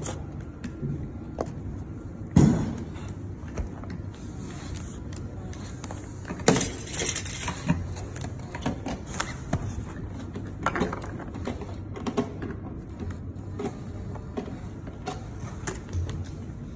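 Workbench handling noise: scattered knocks, clicks and clinks as a mannequin arm and small metal fittings are picked up and set down, with a sharp knock about two seconds in and a rustling scrape lasting about a second a little past the middle.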